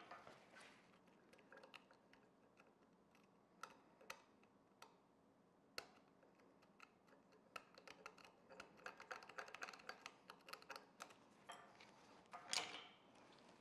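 Faint clicks and taps of small metal vise parts and hand tools being picked up and handled on a steel workbench, crowding into a quick run of ticks about eight to eleven seconds in. Near the end comes one short, louder rustle as a shop towel is handled.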